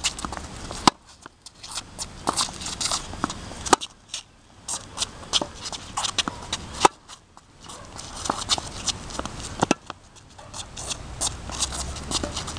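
Tennis rally on a hard court: sharp racquet-on-ball hits about every three seconds, with quick footsteps and shoe scuffs on the court surface between the shots.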